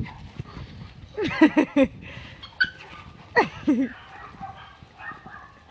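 Dogs barking and yipping in play: a quick run of about four barks just after a second in, and another short burst in the middle, with scuffling between.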